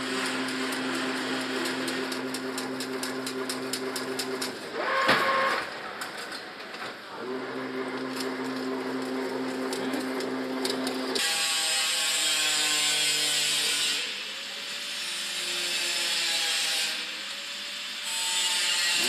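Automatic chain link fence machine running: a steady motor hum with rapid metallic clicking from the wire-weaving mechanism, and one louder clank about five seconds in. About eleven seconds in, the clicking stops and a hiss with a sliding whine takes over.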